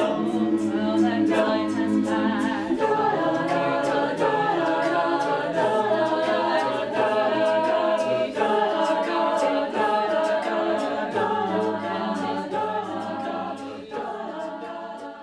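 Co-ed a cappella group singing in layered harmony, with vocal percussion keeping a steady beat; it fades out near the end.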